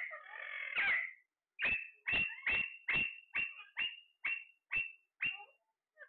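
Alexandrine parakeet calling: a couple of drawn-out harsh squawks, then a run of about ten short, sharp screeches, roughly two a second, growing a little fainter toward the end.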